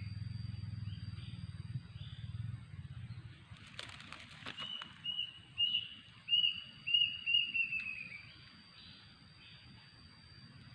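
A bird calling a run of about eight short, evenly spaced notes, each dipping slightly in pitch, with a brief crackle just before the run. A thin steady high whine runs underneath.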